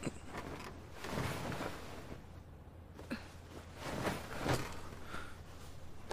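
Soft rustling of clothing and bedding, with quiet breaths, in two gentle swells about a second in and about four seconds in.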